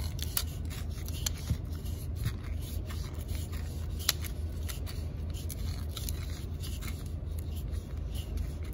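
Steel recoil starter spring being wound by hand into the plastic starter rotor of a Honda GX120 pull starter: scattered light clicks and scrapes of the coils against the rotor, one sharper click about four seconds in, over a steady low hum.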